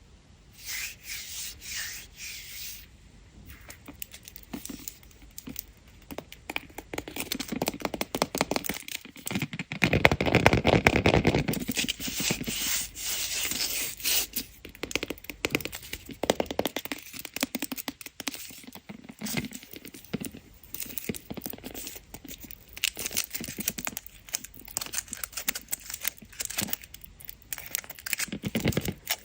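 Candy wrappers being unwrapped and torn open by hand: a dense run of crinkles, crackles and rips, loudest about a third of the way in.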